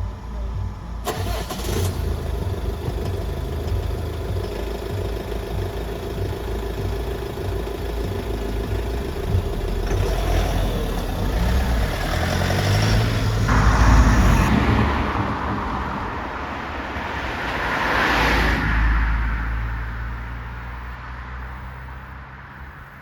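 Road vehicles with their engines running, one holding a steady engine note for several seconds, then vehicles driving past, loudest about halfway through and again a few seconds later, before fading away.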